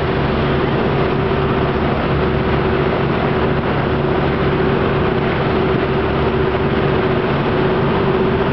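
Boat's engine running steadily under way, a constant drone with a steady hum over an even rushing noise.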